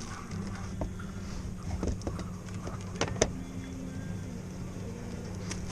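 A boat's motor humming steadily, with a few sharp clicks and knocks, the loudest about three seconds in.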